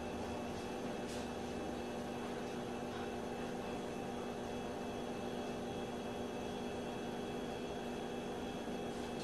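A steady hum with a hiss underneath, holding several constant tones. A faint tick comes about a second in.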